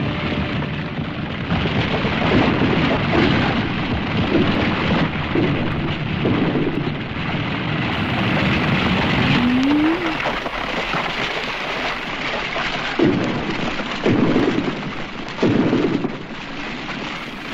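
A loud, steady rushing and rumbling noise like a storm, with a short rising tone twice and a few sudden louder surges near the end.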